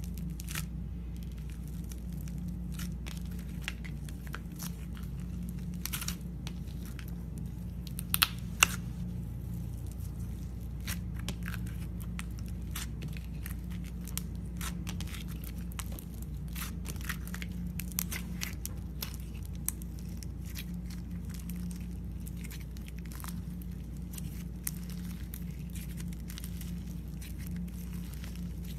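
Slime being squished and stretched by hand, giving irregular small crackles and pops, with two louder pops about eight seconds in, over a steady low hum.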